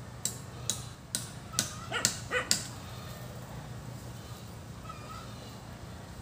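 About seven sharp chopping strikes into a coconut palm trunk, about two a second, stopping about two and a half seconds in.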